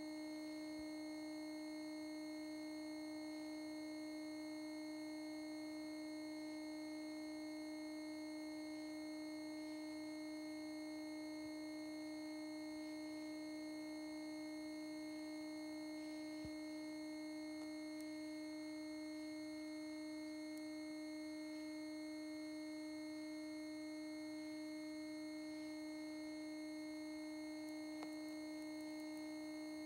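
Steady electronic hum from a television playing the blank end of a VHS tape: one unchanging low tone with higher overtones above it.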